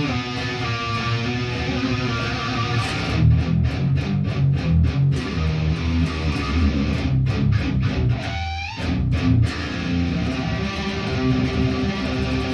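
Electric guitar practice: chords played through with a stretch of short, choppy stops about four a second, and a rising slide about two-thirds of the way through.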